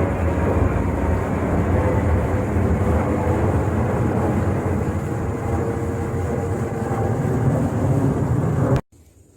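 A vehicle on the move: a steady, loud rumble of road and engine noise with a few faint steady tones, cutting off abruptly near the end.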